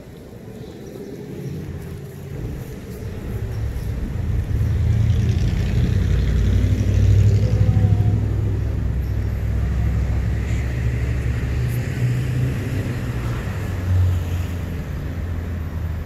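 Road traffic: a motor vehicle's engine rumble grows louder over a few seconds, stays loud, then eases off near the end.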